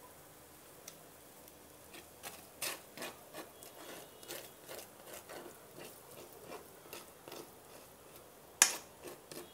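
A metal fork spreading tomato pizza sauce over a pizza base in a nonstick frying pan: soft, repeated scraping and dabbing strokes starting about two seconds in, with one sharp click of the fork near the end.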